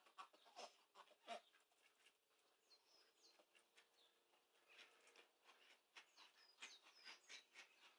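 Faint bird calls: a few short soft calls in the first second and a half, then small birds chirping with quick high notes that slide down in pitch, in bunches around three and around seven seconds in.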